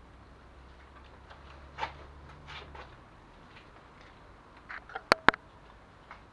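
Scattered light knocks and clatter, then two sharp metallic clicks in quick succession about five seconds in, the first ringing briefly.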